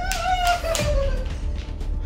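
Background music with a steady beat, overlaid with a high, drawn-out pitched sound that slides slightly down in pitch over the first second.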